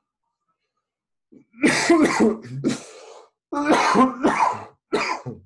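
A man coughing into the crook of his elbow, in three bouts of coughs starting about a second and a half in.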